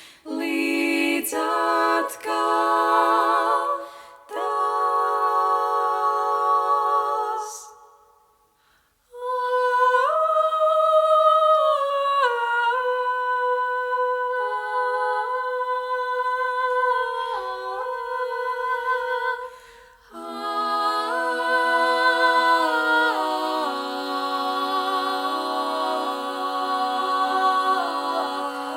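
Female a cappella vocal quartet singing held chords in close harmony. The singing breaks off for about a second about eight seconds in, dips briefly again around twenty seconds, and resumes each time.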